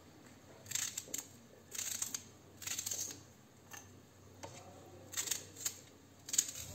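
Small kitchen knife cutting and peeling a red onion held in the hand: a run of short crisp cuts, about one a second.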